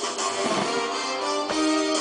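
Instrumental background music, with held notes that change about one and a half seconds in.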